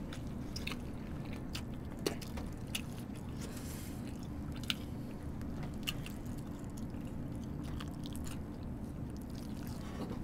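Close mouth sounds of eating a soft, cheese-stuffed toast: quiet chewing with a handful of short wet smacks and clicks, over a steady low hum.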